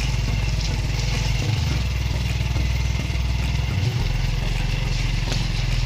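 A motor vehicle's engine running steadily, a constant low rumble under a steady hiss of noise.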